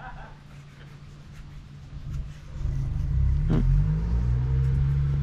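A car engine running quietly at idle, then getting much louder and revving up about two and a half seconds in as the car pulls away, and staying loud to the end.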